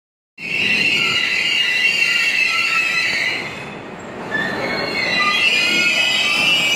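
Steel wheels of a subway work train, an R32 car hauling R127/R134 refuse flatcars, squealing on the rails as it rolls past, over a rumble of rolling wheels. The high squeal starts suddenly, eases for a moment about halfway through, then comes back.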